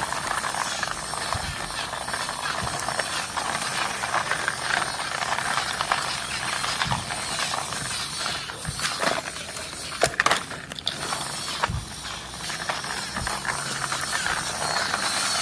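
A toy construction vehicle being pushed by hand over rough ground, its plastic wheels and body making a continuous gritty, clicking rattle. A few sharper clacks come about ten seconds in.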